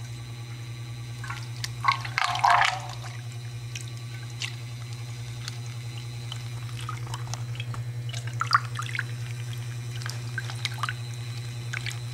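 Overhead laboratory stirrer running with a steady low hum while its impeller churns liquid in a stainless steel vessel. Irregular splashing and dripping sit over the hum, loudest about two to three seconds in and again around eight seconds.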